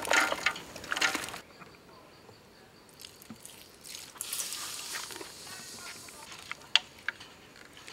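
Chopped potatoes, onions and carrots tumbling out of a plastic bowl into a metal stew pot and scraped out with a spatula, a noisy clatter for about the first second and a half. Later a soft hiss rises and fades, and two sharp clicks come near the end.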